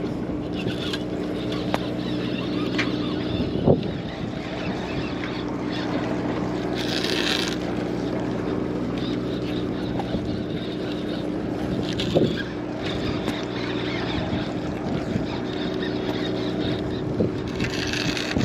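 A boat engine running with a steady hum under wind and water noise. A few sharp knocks come through, and a brief hiss about seven seconds in.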